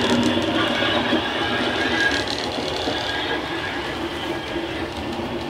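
Hornby OO-gauge Class 50 model's DCC sound decoder playing a Legomanbiffo Class 50 diesel engine sound through an EM2 speaker, running steadily and slowly fading as the train moves away, with light clicking from the wheels on the track.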